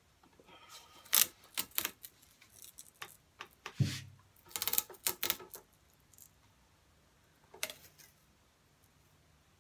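Thin decorative tape being pulled and pressed around a wooden didgeridoo tube: bursts of sharp crackling clicks and rustles, with one dull knock about four seconds in and a last short crackle near eight seconds.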